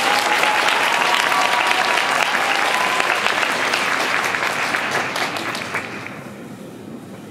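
Arena audience applauding, many hands clapping at once, dying away about six seconds in.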